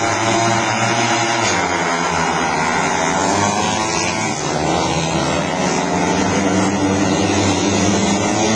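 Several junior speedway motorcycles racing, their engines revving hard with pitches rising and falling as the bikes go through the turns.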